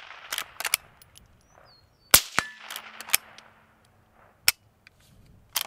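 Suppressed Henry lever-action .22 Magnum rifle firing supersonic rounds: several sharp shots, the loudest about two seconds in, with short clicks between them as the lever is worked. A brief metallic ring follows the loudest shot.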